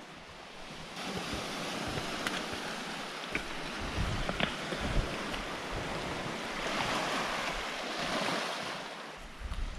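Small waves on Lake Superior lapping and washing onto a cobble and pebble beach, a steady wash that swells around seven to eight seconds in. Gusts of wind buffet the microphone, and there are a few light clicks.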